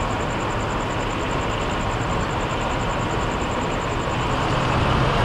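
A parked fire engine's diesel engine idling with a steady rumble, with a faint, rapid high-pitched pulsing over it that stops near the end.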